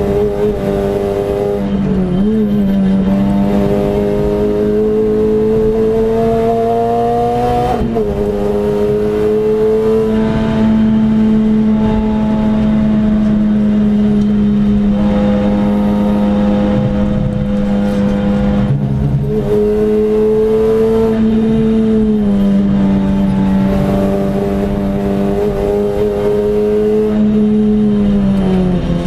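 Renault Clio RS engine heard from inside the cabin, running hard at high revs with the pitch held mostly steady. The revs dip briefly about two seconds in, change with a gear shift about eight seconds in, and fall away near the end as the car slows, over a steady rush of road and wind noise.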